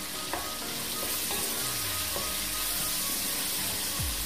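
Chicken, onion and chillies sizzling steadily as they fry in oil in a pot. A wooden spatula stirs them, with a few light taps against the pot in the first couple of seconds.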